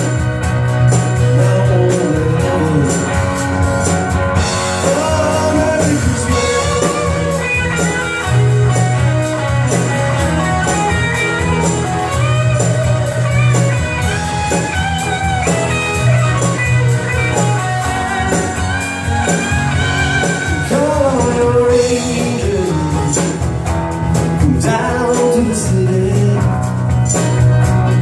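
Live music: singers with an accompanying band performing a Christmas song, over a steady beat.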